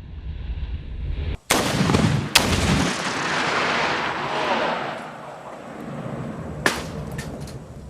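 Heavy weapon fire: a sharp blast about a second and a half in and another about a second later, followed by a long rolling boom that fades over a few seconds, then one more bang near the end.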